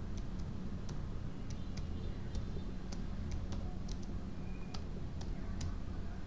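Computer keyboard keys clicking at an uneven pace, about two strokes a second, over a steady low hum.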